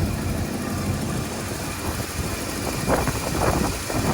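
A 1995 Ford F-150's 5.8-litre (351 Windsor) V8 idling steadily at its proper idle speed after a throttle position sensor replacement, with the engine tick the owner has pointed out.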